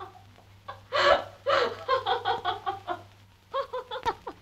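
People snickering and laughing in runs of short ha-ha pulses, one run about a second in and another near the end.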